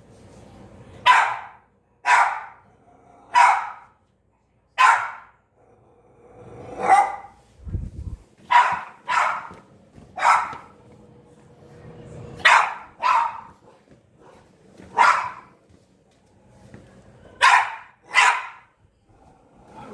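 A puppy barking: about thirteen single, sharp barks, sometimes in quick pairs, with pauses of a second or two between them. A dull low thump comes about eight seconds in.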